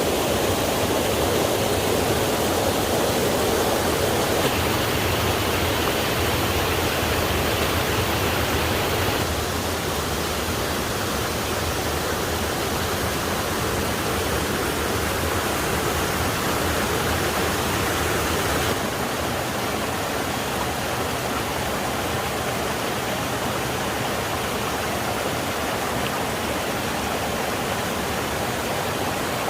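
Waterfall, a steady rush of falling water, dropping a little in level about nine seconds in and again past halfway.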